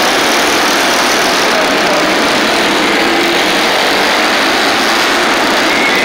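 A pack of racing motorcycles running laps on an indoor dirt-style oval, their engines blending into a loud, steady din.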